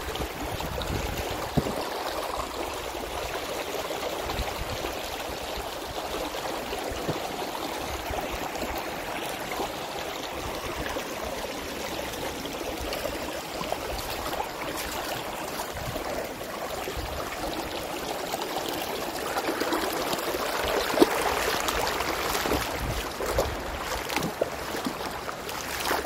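Stream water running steadily, a little louder about twenty seconds in.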